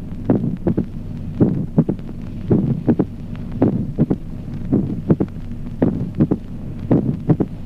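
Recorded heartbeat in regular sinus rhythm, a little under one beat a second, over a steady low hum. Each beat is a group of short, sharp sounds: the first and second heart sounds, and after a long gap a mitral opening snap, a sign of mitral stenosis.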